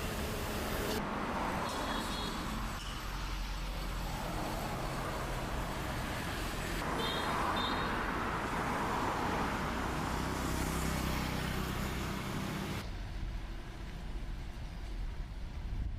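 Road traffic noise, a steady wash of passing vehicles, with two brief high beeps. Its character changes abruptly several times, as at cuts between clips.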